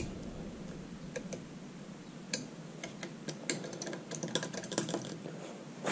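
Metal O-ring pick scraping and ticking in the recess of a T20 Torx screw head on a Duramax fuel filter head, digging out gunk. It makes a run of small, irregular clicks that get busier near the end.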